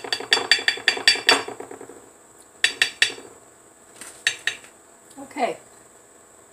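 A utensil clinking against a ceramic dish as a marinade is stirred: a quick run of about eight taps in the first second and a half, then a few more taps around the middle.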